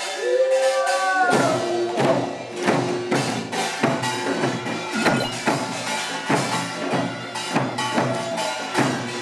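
Korean traditional percussion band accompanying a mask dance, its drums beating a steady, driving rhythm of about two to three strikes a second over a held tone; the beat sets in after a falling, gliding tone in the first second.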